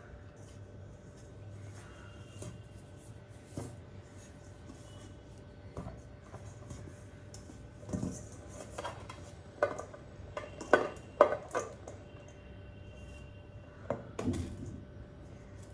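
Dishes and utensils being handled, making scattered clinks and knocks, with a quick run of louder clinks about ten to eleven seconds in, over a faint steady hum.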